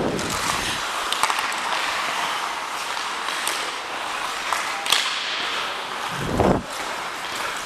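Ice hockey skates scraping and gliding on rink ice as a steady hiss, with a few sharp clicks of hockey sticks and puck, about a second in and about five seconds in. A brief low rumble comes about six seconds in.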